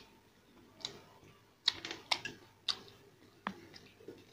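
Close-up mouth sounds of a person eating crispy masala dosa: chewing with a run of short, crisp crunches and smacks, one about every half second.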